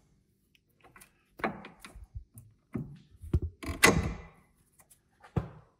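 Metal clanks and knocks of tools and parts on a van's front steering knuckle and suspension during reassembly: about five separate knocks, the loudest about four seconds in.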